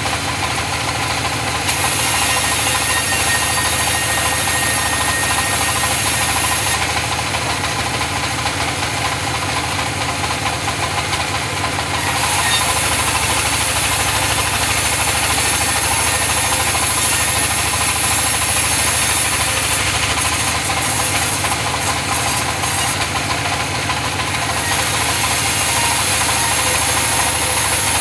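Engine-driven sawmill saw running steadily, cutting mahogany timber; the cutting noise grows brighter and harsher in three long stretches as the blade works through the wood.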